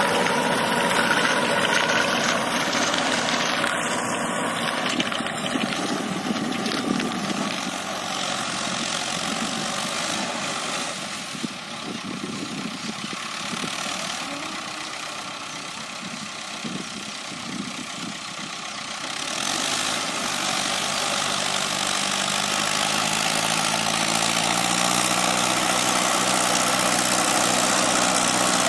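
Mahindra Arjun Nova 605 DI-i tractor's four-cylinder diesel engine running under load while driving a Maschio rotary tiller through dry soil. The sound fades as the tractor moves away across the field, then grows louder again from about two-thirds of the way in as it comes back, its engine note rising near the end.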